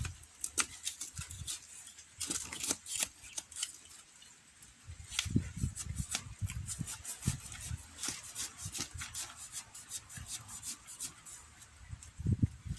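Dry plant material crackling and rustling in irregular spurts, with scattered low thumps, as vegetation is handled by hand.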